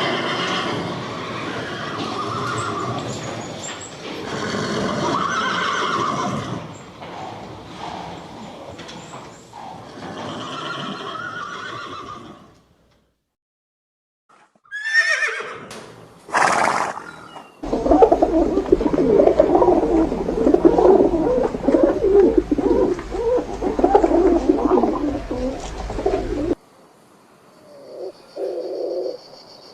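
Horses neighing and whinnying in a string of separate short clips, with a break of silence about halfway. Two sharp whinnies sweep up and down in pitch just after the break.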